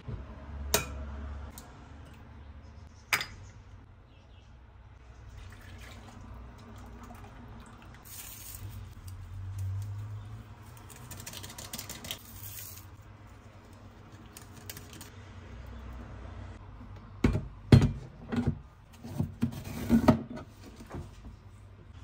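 Kitchen handling sounds: sharp taps and clinks against a glass mixing bowl as ingredients are added to it, with a cluster of several loud knocks near the end.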